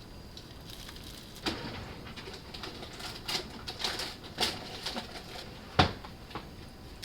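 A series of light knocks and clicks from objects being handled, irregularly spaced, with one sharper, louder knock near the end.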